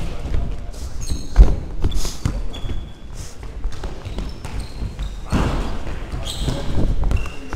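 Indoor football in an echoing sports hall: the ball thuds against feet and floor, one sharp thud about a second and a half in, with running footsteps and short high squeaks of trainers on the hall floor.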